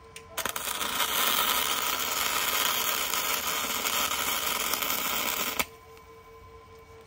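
Flux-core wire-feed (MIG) welder arc crackling steadily as a bead is run on steel. It starts abruptly about half a second in and cuts off suddenly about five seconds later.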